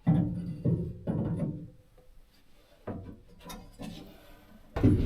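Irregular knocks and scraping as a wire shelf and its wall bracket are handled and fastened, in several separate bursts.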